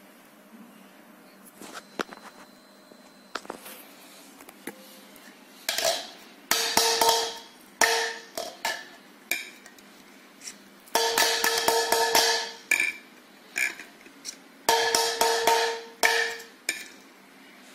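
Polycarbonate plastic wine glasses knocked over and clattering against one another on a table, with a ringing tone: a few scattered knocks at first, then three loud spells of clatter. There is no shatter: the glasses stay unbroken.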